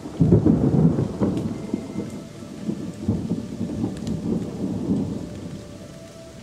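Thunder: a sudden loud clap just after the start that rolls on in waves and fades near the end, over steady rain.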